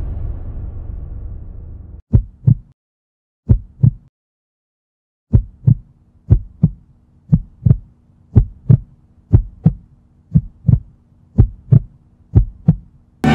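Heartbeat sound effect: paired low thumps, a couple of double beats with gaps at first, then steadily about once a second over a faint low hum. Before it, music dies away during the first two seconds.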